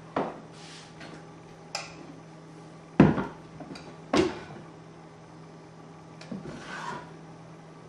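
Plastic Vitamix blender jar being handled: a few light clicks and rubbing, then two hard knocks about three and four seconds in as the jar is set down on the counter, and more plastic rubbing near the end.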